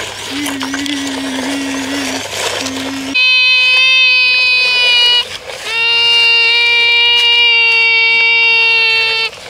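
Steady electronic tones. A low even tone with a faint hum runs for about three seconds. Then a louder, higher buzzing tone comes in, breaks off briefly about two seconds later, and resumes slightly lower until just before the end.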